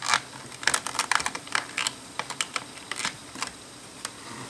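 LEGO plastic parts clicking and snapping under fingers as a cupboard door piece is pressed into a brick cabinet: a quick, irregular run of small sharp clicks that stops about three and a half seconds in.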